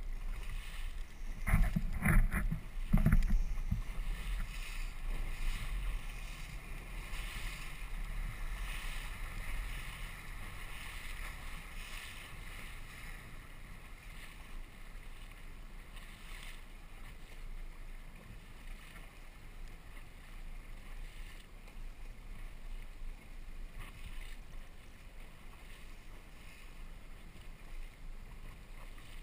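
Outboard motor of a rigid inflatable boat running as the boat moves across the water, with water rushing past the hull and wind on the microphone. A few loud thumps come about two to three seconds in, then the sound settles into a steady hum that gets a little quieter in the second half.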